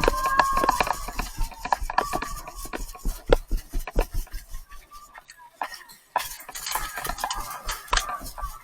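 Airsoft guns firing: a run of sharp, irregular pops, several a second. Faint voices are heard in the first second.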